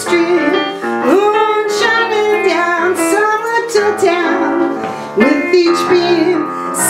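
A woman singing a slow song with piano accompaniment, holding and bending long sung notes over the piano chords.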